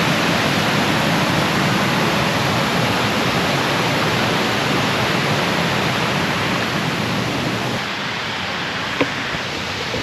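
Rushing water of the first tier of Erawan Waterfall, a loud, steady, even hiss that eases slightly near the end.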